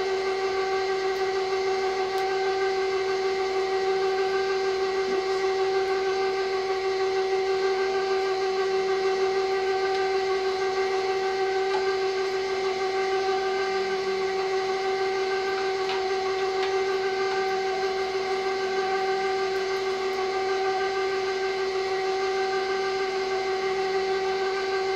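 KitchenAid stand mixer running its meat grinder attachment, grinding lamb and steak: a steady motor whine that holds one pitch throughout.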